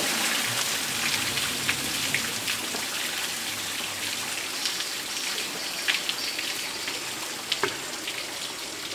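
Water falling and splashing steadily into a shallow pool, a continuous hiss of spray with a few sharper splashes and drips scattered through it.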